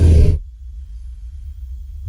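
Triceratops creature sound effect: a deep, rumbling call that cuts off about half a second in, leaving a faint low rumble until another deep call starts right at the end.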